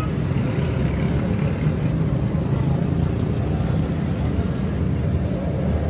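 Steady low mechanical rumble like engine or traffic noise, even throughout, with no distinct knocks or clicks.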